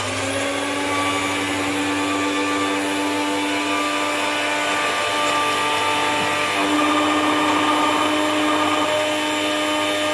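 Miyako electric blender running steadily with its small grinder jar, chopping shallots, garlic and chilies into a spice paste. The motor's whine steps up slightly in pitch about two-thirds of the way through.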